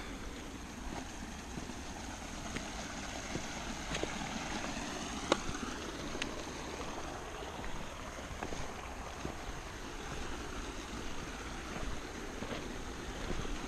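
Footsteps on a loose rocky trail, with a few sharp clicks of stones underfoot and one louder click about five seconds in, over a steady rushing noise on an action camera's microphone.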